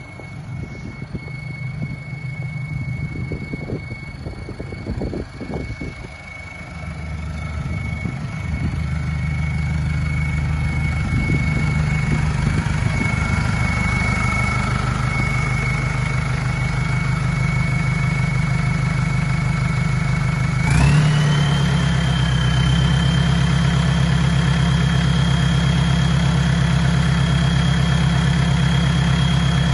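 Mercedes Sprinter engine running with a loud, steady high turbo whistle over the engine hum. About two-thirds of the way through there is a thump, and the whistle jumps higher in pitch and holds there while the engine note rises slightly.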